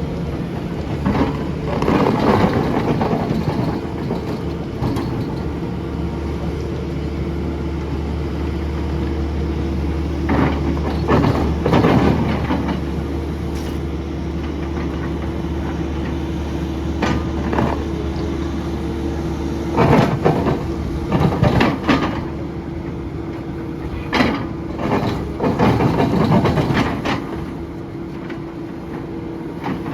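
SANY SY500H hydraulic excavator engine running steadily, with repeated bursts of metallic clanking and scraping from the ripper working the ground. The deep engine note falls away about two-thirds of the way through.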